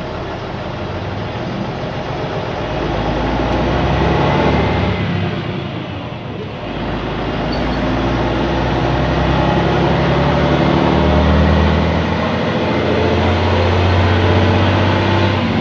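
Leyland National 2 single-deck bus heard from inside the cabin, its diesel engine running under way: the engine note climbs over the first few seconds, dips about five seconds in, then climbs again and holds steady.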